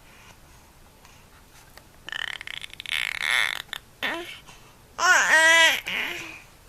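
A baby making funny vocal noises: a breathy, rasping sound about two seconds in, then, about five seconds in, a loud warbling squeal whose pitch wobbles rapidly up and down.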